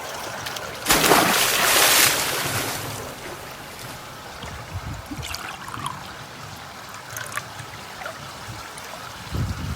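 Water trickling and splashing, loudest in a rush of noise about a second in that fades over the next two seconds, with a few small clicks after.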